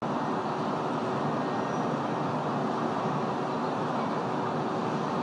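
Steady city street noise, a continuous wash of traffic sound.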